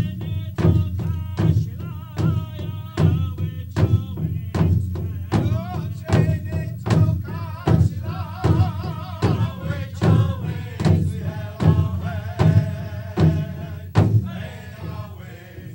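A voice singing a wavering melody over a steady drum beat, about one and a half beats a second.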